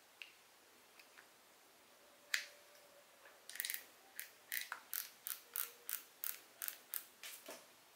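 Spinning fishing reel's mechanism clicking as it is worked by hand: a few light clicks, one sharp click, then a run of about a dozen sharp clicks at roughly three a second.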